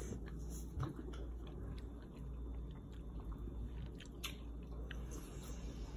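A person chewing a mouthful of rice and vegetables, with a few faint clicks over a low steady hum.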